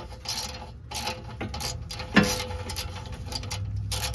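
A socket ratchet clicking in short, uneven runs as it loosens the nuts on an O2 sensor's exhaust flange, with one sharper clank about two seconds in.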